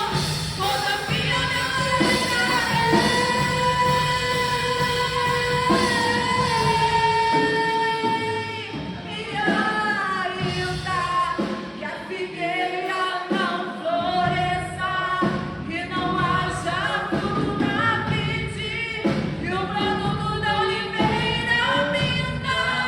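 Live gospel worship song sung by a woman-led praise group with a full band and drums. A long note is held early on. The bass and drums thin out briefly around the middle before the band comes back in.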